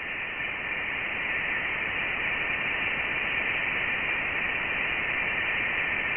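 Steady static-like hiss, brightest in a high band: a spacecraft's recording of a planet's radio and plasma-wave emissions converted into audible sound.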